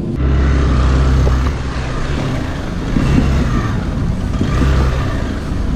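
Motorcycle engine under load, surging three times as it is throttled through deep mud with the clutch slipped hard, hard enough that the clutch smells of burning.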